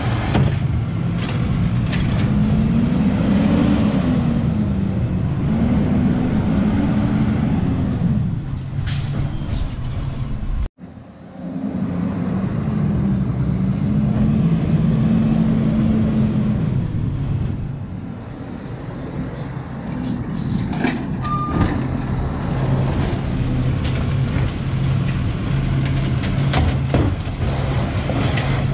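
Garbage truck's diesel engine running and revving up and down in slow swells as the truck's hydraulics work. Short high squeals and hiss come in at two points: once before a brief cut in the sound, and again later.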